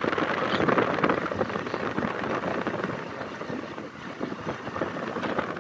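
Wind buffeting the microphone: a rough, gusty rushing noise that eases off over the second half.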